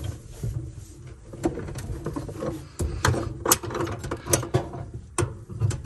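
Metal wrenches clicking and knocking against a propane line fitting as it is broken loose, a string of irregular sharp clicks.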